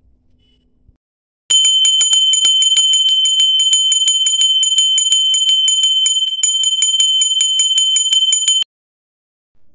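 A puja bell ringing rapidly and evenly, about six strikes a second, over a steady high ring. It starts about a second and a half in and stops abruptly near the end.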